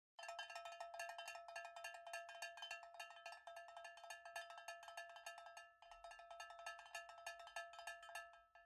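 Quiet closing jingle of rapid bell-like metallic notes, about five strikes a second on the same few pitches, with a brief break about six seconds in. It stops just before the end.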